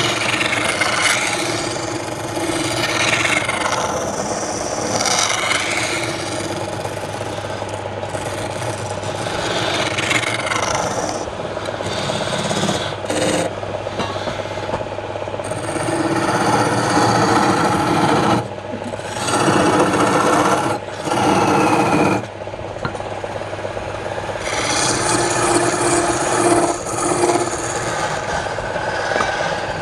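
Wood lathe running, with a steady low motor hum under a continuous scraping rasp from a tool held against the spinning wood. The rasp breaks off briefly three times past the middle of the clip, when the tool leaves the wood.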